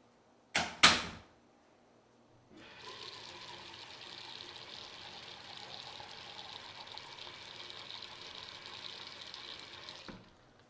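A door is shut hard with two sharp knocks. A couple of seconds later water starts running steadily behind it, a tap or shower, and it cuts off sharply near the end.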